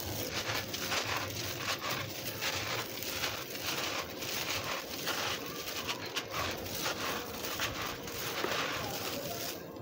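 Hands crumbling moulded lumps of dry crushed-stone grit, the granules crunching and pouring down in a steady run of rough, gritty strokes, several a second.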